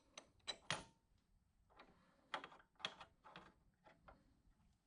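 A series of faint metallic clicks and knocks from a 1-2-3 block being set against a lathe chuck and tool holder while the threading tool is squared to the work.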